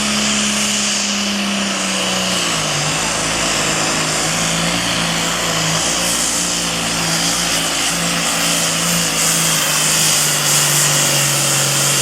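Super Farm pulling tractor's diesel engine running flat out under the load of the pulling sled, with loud exhaust noise; its pitch drops a couple of seconds in and stays lower as the sled pulls the engine down.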